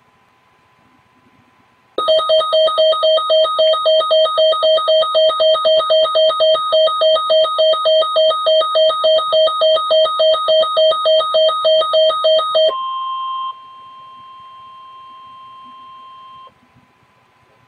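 Emergency alert tones opening a severe thunderstorm warning. A loud electronic alarm beeps rapidly, about three beeps a second, for about ten seconds. Then a quieter steady single-pitched alert tone sounds for about four seconds and cuts off.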